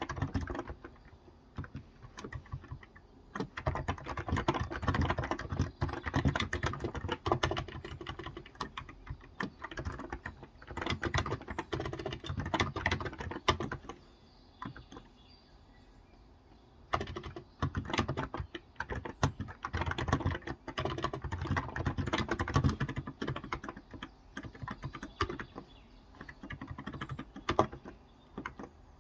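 Typing on a Cox Endeavor tenkeyless electrostatic capacitive keyboard with 35 g switches: quick runs of keystrokes in several bursts, with short pauses about two seconds in, around halfway and near the end.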